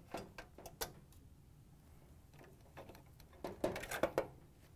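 Small plastic clicks and taps as gloved hands handle and plug wire harness connectors into a dryer's electronic control board: a few clicks in the first second, then a quick cluster of louder clicks near the end.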